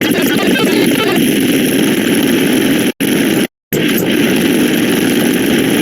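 Loud, rough, engine-like sound effect that cuts out abruptly to dead silence twice, briefly about three seconds in and again just after.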